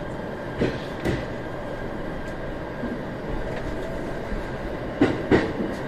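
Shinano Railway SR1-series electric train rolling slowly, heard from inside the cab: a steady running rumble with two pairs of sharp clacks, about a second in and near the end, as the wheels cross rail joints or points. A faint rising whine comes in during the second half as the train gathers speed.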